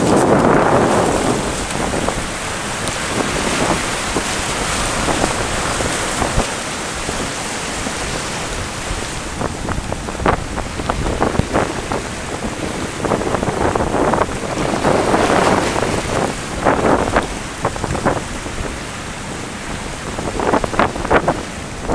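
Rough sea surf breaking and washing over rocks, with wind buffeting the microphone in gusts.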